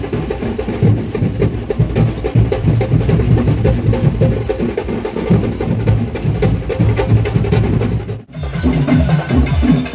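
Percussion music: fast, dense drumming with heavy low drum strokes. It breaks off abruptly about eight seconds in, then a rhythm with a bass line starts again.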